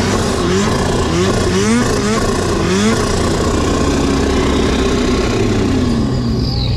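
Snowmobile engine revving up and easing off again and again, about twice a second, for the first three seconds. It then holds a steadier note whose pitch slowly sinks, with a quick fall near the end.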